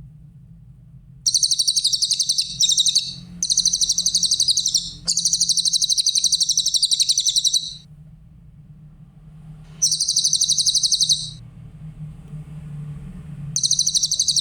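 Cililin bird singing: repeated bursts of very rapid, high-pitched trills, each lasting one to a few seconds with short pauses between, over a steady low hum.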